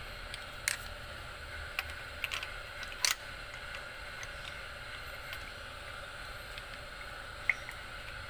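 A few sharp clicks and knocks of hand work on engine parts, most of them in the first three seconds and one more near the end, over a faint steady hum.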